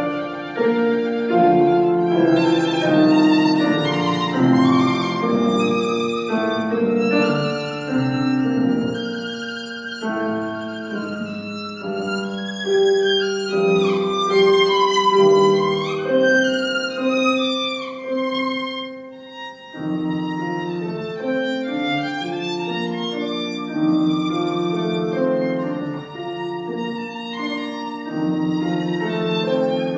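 Violin playing a classical piece, with notes changing in quick succession and a passage of wavering, sliding high notes about halfway through.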